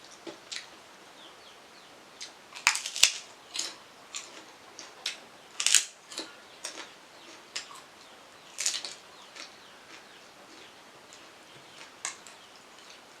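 Close-miked eating sounds: irregular crunches and mouth clicks from chewing, with louder bites about 3, 6 and 9 seconds in.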